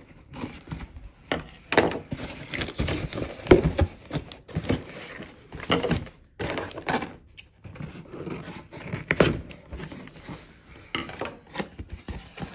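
Scissors blade slitting the packing tape along a cardboard box's seam, then the tape being pulled up and the cardboard flaps worked open. It comes as an irregular run of scrapes, rips and crinkling, with scattered sharp cracks.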